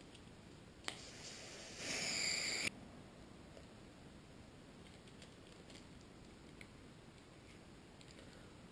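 Can of airsoft gas pressed onto a Tornado grenade's fill valve: a click about a second in, then gas hissing into the grenade, louder for about its last second and cut off suddenly. Faint handling sounds follow.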